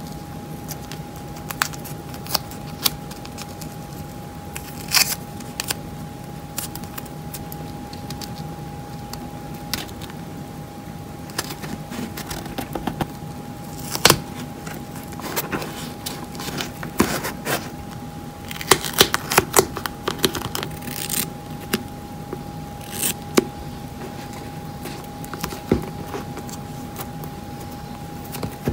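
Green duct tape being folded and pressed onto a milk carton by hand: irregular crinkles, crackles and taps, busiest about two-thirds of the way in, over a faint steady tone.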